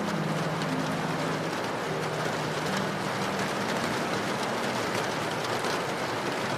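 Steady, even rain falling, with a few soft, low sustained musical notes underneath that shift in pitch every second or two.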